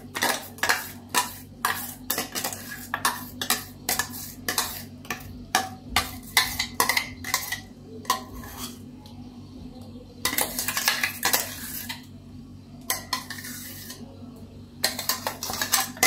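Steel spoon scraping and knocking against the inside of a stainless steel mixer-grinder jar to get the ground coconut paste out: a quick run of metallic clicks and taps, two or three a second, with a longer stretch of scraping about ten seconds in.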